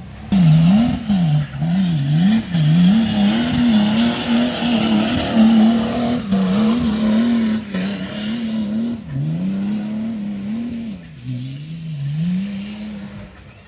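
Off-road 4x4's engine revving hard and repeatedly, the pitch swinging up and down about twice a second at first, then held high, then dipping twice near the end, over a haze of tyre and ground noise as it works across rough terrain.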